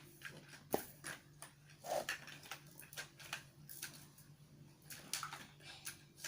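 Light, scattered clicks and knocks of plastic toy food and toy kitchen things being picked up and set down during pretend cooking.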